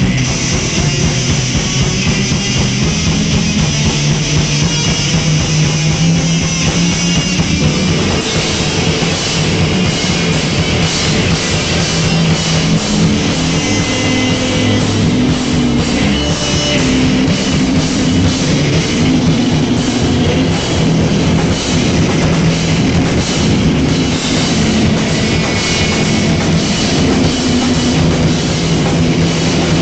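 Live rock band playing an instrumental stretch: electric guitars over a drum kit, with the drums and cymbals growing fuller about eight seconds in.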